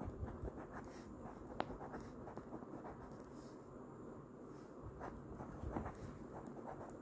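A pen scratching faintly on ruled notebook paper in short, irregular strokes, drawing boxes and the lines that join them.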